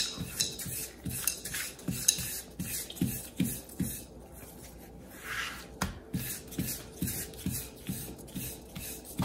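Wooden rolling pin rubbing and scraping as it rolls naan dough flat on a silicone mat, over background music with a steady beat of about two thumps a second.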